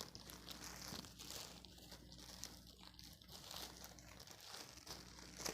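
Faint crinkling and rustling of plastic parcel packaging being handled and opened, with a few small clicks.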